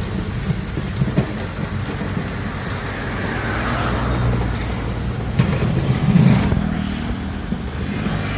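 Heavy diesel earthmoving machinery running with a steady low engine drone, with a few sharp knocks and a louder surge about six seconds in.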